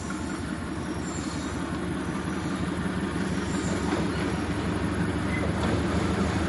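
GE C36-7i diesel-electric locomotive's V16 diesel engine running as the train approaches, a steady low drone that grows gradually louder.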